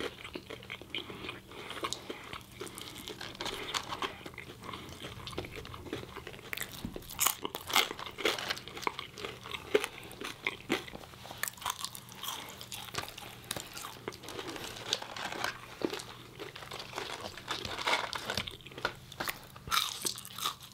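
Close-miked eating: two people chewing fried chicken sandwiches and french fries, with irregular crunchy bites of crispy breading and wet chewing sounds.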